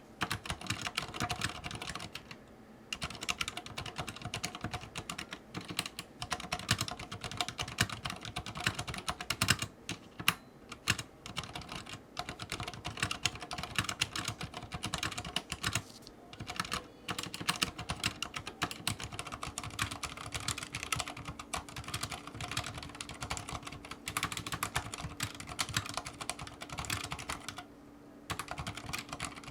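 Fast, continuous typing on a Thinkway CROAD C604 mechanical keyboard with Cherry MX Silent Red linear switches and aftermarket keycaps, the keystrokes coming in dense runs with a few brief pauses.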